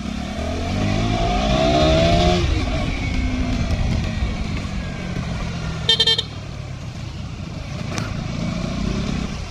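KTM Duke 200's single-cylinder engine pulling up through the revs with a rising pitch as the bike accelerates, easing off after about two and a half seconds and then running steadily along the road. A short horn beep sounds about six seconds in.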